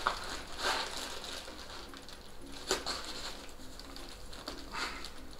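Dense packing foam rubbing and squeaking in scattered strokes as hands work a statue bust out of its foam insert, with a sharp click near the middle.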